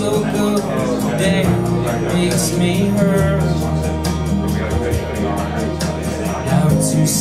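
Recorded music with a singing voice over steady bass notes and an even beat, played through DALI Callisto wireless active hi-fi speakers in a demonstration room.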